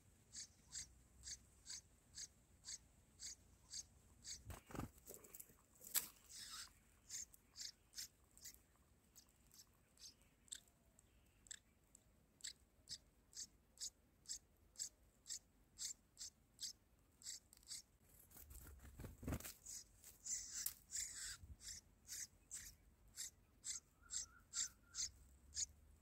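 Red-whiskered bulbul nestlings begging: faint, high-pitched chips repeated steadily about twice a second. Two dull knocks break in, about five seconds in and again past the middle.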